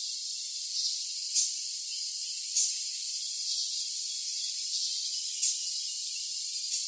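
Crickets trilling in a dense, steady high-pitched chorus with a thin steady high tone, while songbirds give short high chirps every second or two. There is no low sound at all, only the high pitches.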